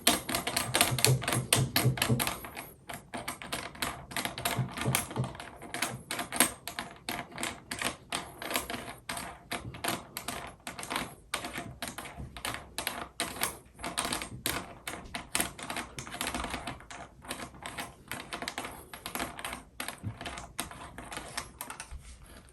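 A fast, irregular run of small clicks, several a second, as faucet parts are turned and fitted by hand during the install. The clicks are a little louder in the first couple of seconds.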